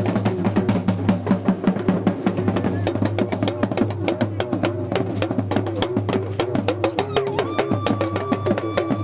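Dagomba drum ensemble playing a fast, dense rhythm. Hourglass talking drums (lunga), struck with curved sticks, bend in pitch between strokes over a barrel bass drum (gungon). A steady high held note joins about seven seconds in.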